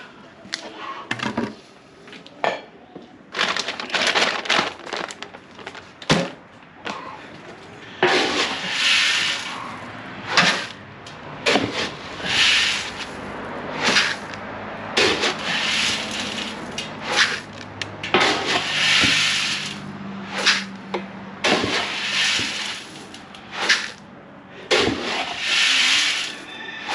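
Chicken feed being scooped and poured: a rushing hiss of about a second, repeated every couple of seconds, among knocks and rattles of the scoop and container.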